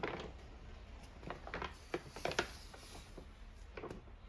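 A few light clicks and taps, scattered irregularly and clustered a little after two seconds in, over a low steady hum.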